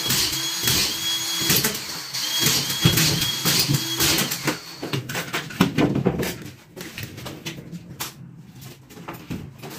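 A power screwdriver whines in short repeated runs, with knocks and clatter from plasterboard being handled. After about five seconds the whining stops and only scattered knocks remain.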